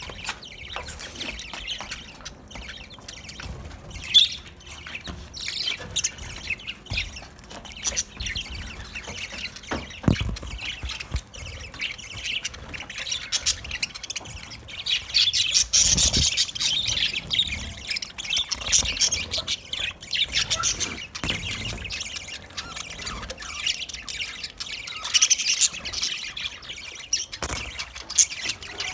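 A group of budgerigars chirping and chattering without a break, many short overlapping high chirps and squawks, busiest around the middle and again near the end.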